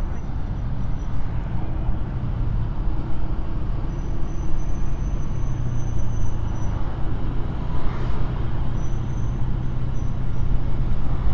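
Honda PCX 160 scooter's single-cylinder engine running at low speed in city traffic: a steady low hum under road and wind noise, with other vehicles around.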